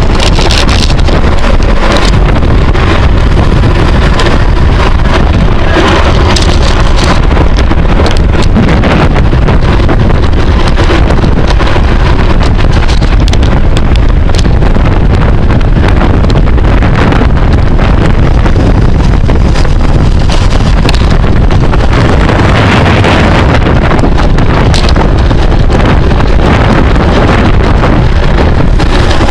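Loud, steady wind noise on the microphone of a camera riding along on a racing bicycle, the rush of air at race speed.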